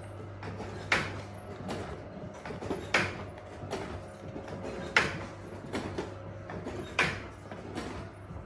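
A sharp mechanical knock with a short fading swish, repeating evenly about every two seconds over a steady low hum.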